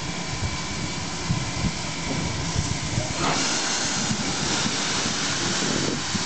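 Swedish steam locomotive B 1281, an SJ class B 4-6-0, with its cylinder drain cocks open. A loud hiss of escaping steam starts about three seconds in, over a low uneven rumble from the engine.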